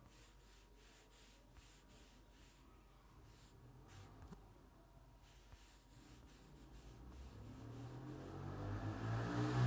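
Faint light rustling for the first several seconds, then music fading in about two-thirds of the way through and growing steadily louder.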